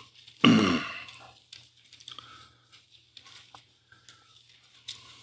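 Pages of a Bible being leafed through close to a lectern microphone: soft paper rustles and small taps. About half a second in there is one short, loud vocal sound from the man at the lectern, falling in pitch.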